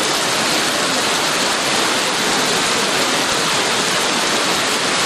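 Heavy rain pouring down steadily as a loud, even hiss.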